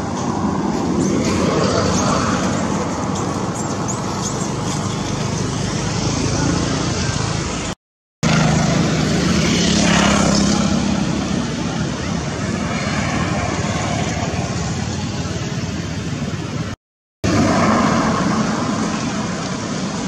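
Steady outdoor background noise, a rumble and hiss like distant traffic, cut twice to brief silence.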